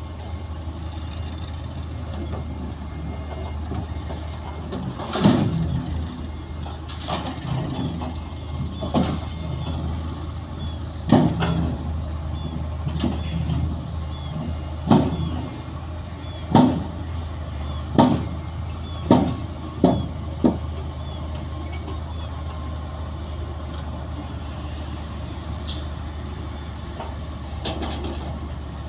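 Heavy earthmoving diesel engine running steadily, with a series of loud, sharp knocks or clanks, about a dozen spaced a second or two apart through the middle of the stretch and a couple more near the end.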